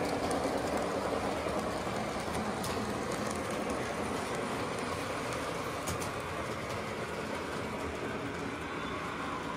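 Model electric train running along its track, a steady rumble of wheels and motor that slowly fades as it moves away, with a couple of faint clicks.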